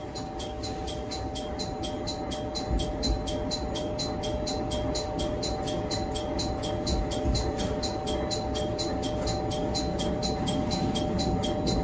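Fast, even bell-like ticking at about four strikes a second, likely a warning bell or signal, over the steady hum and rumble of a diesel railcar running.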